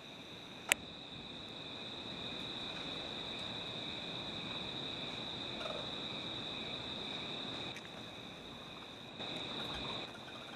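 Crickets trilling steadily in two high tones, with one sharp click about a second in.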